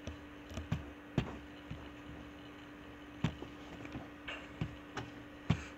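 Scattered single clicks and taps of computer keys and mouse buttons, about a dozen at irregular intervals, over a steady low electrical hum.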